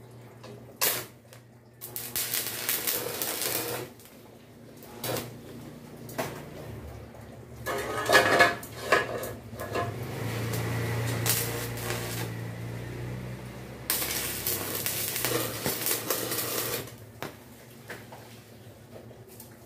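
Stick arc welding: the electrode's arc crackles and sizzles in several runs of a few seconds each, with sharp clicks between runs, over a low steady hum.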